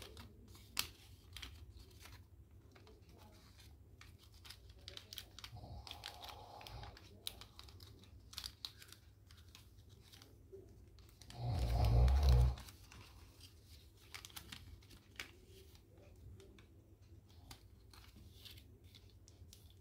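Origami paper crinkling and rustling in quick, faint clicks as hands fold and press it. About twelve seconds in, one loud, low, snore-like sound lasts about a second.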